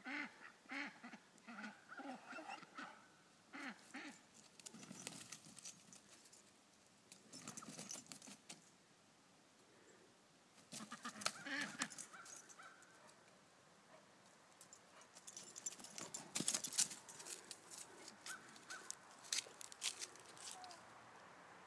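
Geese honking, a run of repeated calls over the first few seconds, with a few more later on. Several short bursts of rustling, scuffling noise are spread through the rest.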